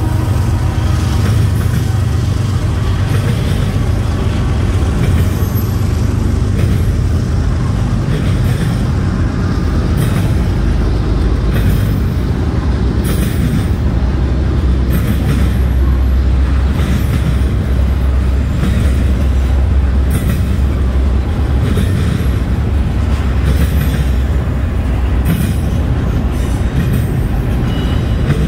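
A freight train rolling past: a steady low rumble with scattered sharp clicks and rattles.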